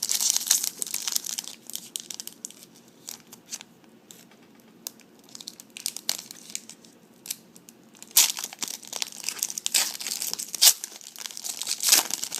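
A trading-card pack wrapper being crinkled and torn open by hand. The crackling comes in a spell near the start and again from about eight seconds in, with lighter scattered handling sounds in between.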